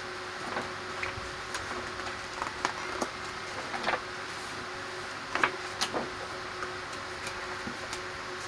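Stiff pages of a wallpaper sample book being turned and handled: a few short rustles and soft knocks, over a steady background hum.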